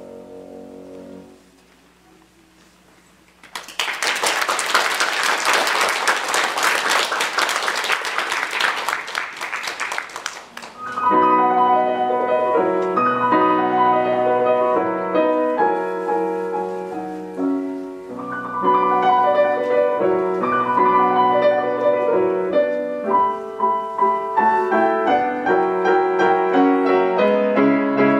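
A piano piece ends, and after a short pause an audience applauds for about seven seconds. About eleven seconds in, the next solo piano piece begins and plays on.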